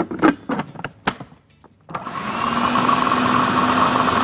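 Food processor lid fitted and clicked into place with a few sharp knocks, then about two seconds in the motor starts and runs steadily, blending boiled instant noodles with starch and spices.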